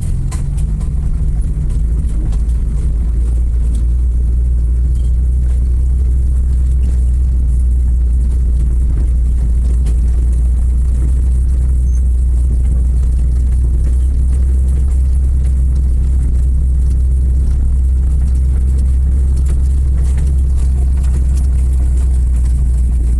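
Car engine and road rumble heard from inside the moving car: a steady low drone that holds even throughout.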